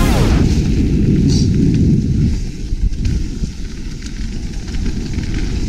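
Wind buffeting an action camera's microphone with mountain bike tyres rumbling over a dirt trail on a fast descent: a dense, low rumble with no tones in it.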